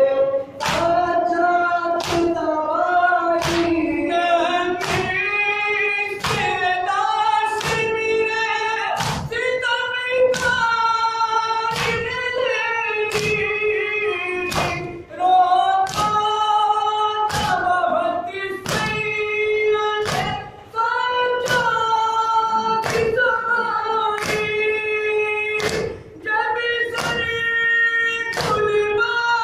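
Men chanting a nauha, a Shia Muharram lament, in chorus, beating their chests (matam) with sharp hand slaps in unison about once a second to keep the beat.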